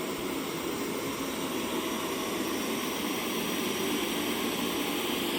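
SwitchBot S10 robot vacuum running, a steady whirring hum of its suction motor and brushes.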